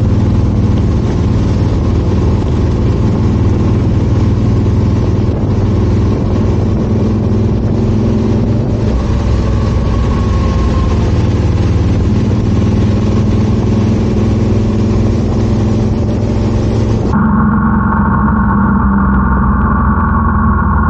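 Yamaha XT1200Z Super Ténéré's parallel-twin engine running steadily while riding in heavy rain, under a loud hiss of rain and wet-road spray. The hiss drops away suddenly about seventeen seconds in, leaving the engine clearer.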